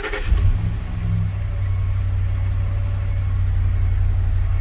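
2011 Ford F-250's engine catching right at the start and then idling steadily with a low rumble. It is a test start with a freshly programmed key set, checking that the truck accepts the key and runs.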